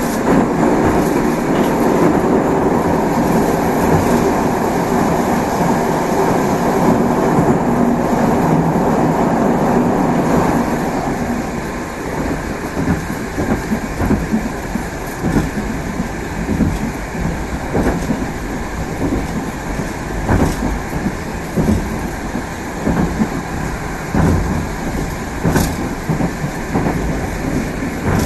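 A Moscow metro train of type 81-765 "Moskva" running along the track, with a steady, loud rumble of wheels on rail. About eleven seconds in the rumble drops and the clicks of wheels over rail joints stand out.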